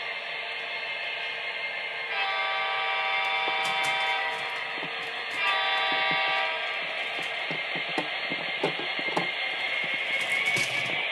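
Model CSX diesel locomotive's sound unit sounding a chime horn twice, a long blast about two seconds in and a shorter one a little later, over a steady engine rumble. Irregular light clicks of the model's wheels over the track run through the second half.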